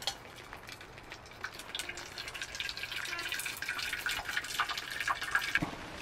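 Hot water poured from a stainless steel Thermos vacuum flask into a metal mess tin: a steady splashing stream for about three seconds, followed by a few light clinks.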